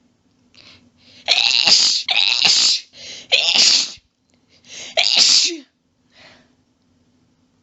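A person sneezing in a rapid fit brought on by allergies. Three sneezes come in quick succession about a second in, then a short catch of breath and a fourth sneeze.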